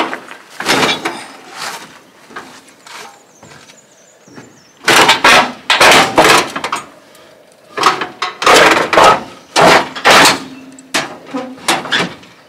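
Rusty sheet-metal hood of an International B414 tractor being forced open by hand: a run of loud metal scrapes, bangs and clanks, heaviest about five to seven seconds in and again about nine to ten seconds in.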